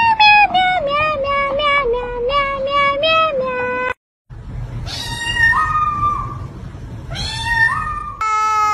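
A melody of short held notes stepping up and down for about four seconds. Then a grey cat meows twice, each call jumping up in pitch, and near the end a kitten gives a long meow that falls in pitch.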